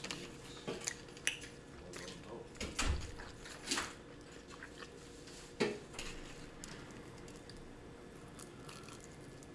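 A plastic knife scraping and tapping on a disposable plate, with a handful of short scrapes and clicks over the first six seconds, then quieter.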